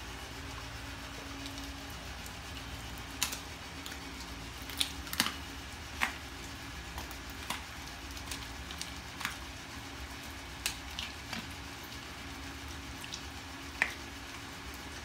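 A Belgian Malinois chewing raw chicken head and feet: about ten sharp, irregular crunches and clicks of teeth on bone, over a steady low hum.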